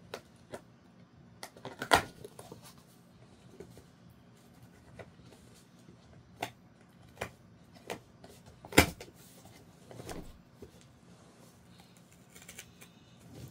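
Handling noises: scattered clicks and knocks of things being picked up and set down, with two louder knocks, one about two seconds in and one near nine seconds.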